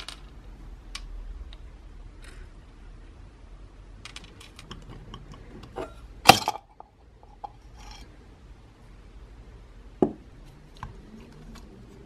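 Small metal and plastic parts of a vintage Moulinex coffee grinder handled and set down on a wooden bench during disassembly: scattered light clicks and clinks, a loud clatter a little past midway and a sharp knock about four seconds later.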